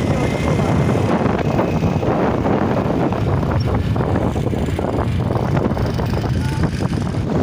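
Small motorcycle engines running at riding speed, with wind buffeting the microphone.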